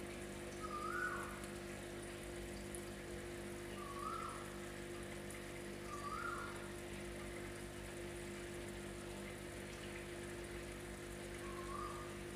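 Aquarium air pump humming steadily while its air bubbles up through sponge filters with a faint patter. Four times, a short whistle-like note rises and then drops.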